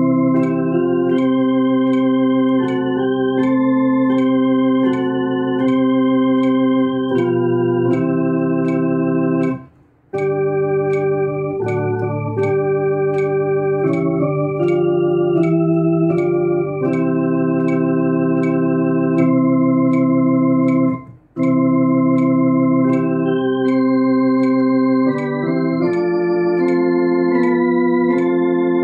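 Two-manual electronic organ playing a hymn slowly in held chords, both hands, over a metronome clicking about twice a second. The playing stops briefly twice, about ten and twenty-one seconds in, while the clicks go on.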